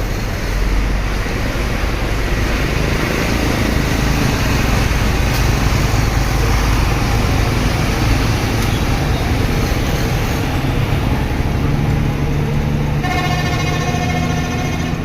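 Heavy low rumble of a bus engine and road noise, then about two seconds from the end a bus's multi-tone telolet (basuri) horn sounds a held tone.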